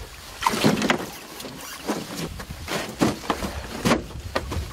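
Water splashing and irregular knocks as a landing net holding a king salmon is worked against the side of a small fishing boat. The strongest splash comes about half a second in, with sharper knocks near three and four seconds in.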